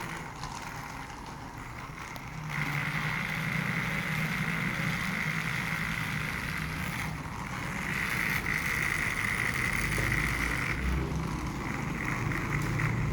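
Toy train locomotive running on its track: a steady small electric motor whine with the wheels rolling on the rails. It gets louder about two and a half seconds in and again around eight seconds in.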